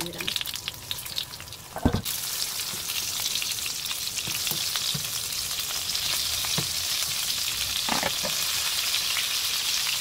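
Egg-battered king oyster mushroom slices shallow-frying in plenty of oil, crackling and sizzling. A single thump about two seconds in, after which the sizzle turns louder and steadier.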